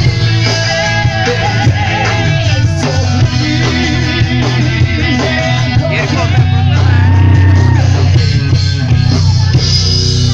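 Live rock band playing loudly with a singer, a strong steady bass under the vocal and guitar lines.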